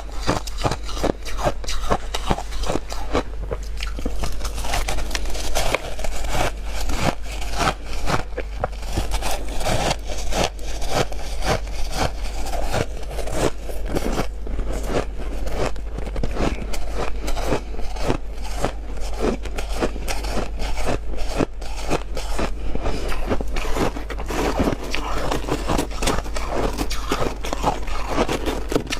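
Close-up biting and crunching of big chunks of freezer frost, a dense, irregular run of crisp crunches.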